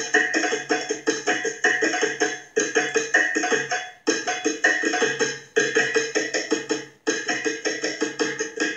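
African drum music: a fast, busy pattern of pitched drum strokes repeating in short phrases, cutting off near the end.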